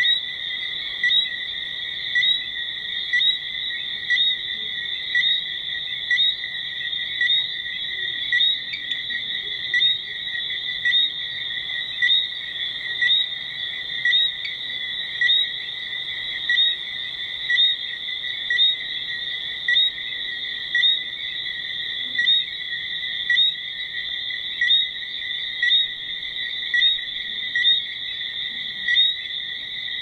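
Insects trilling in a steady, high-pitched chorus, with a louder pulse about once a second.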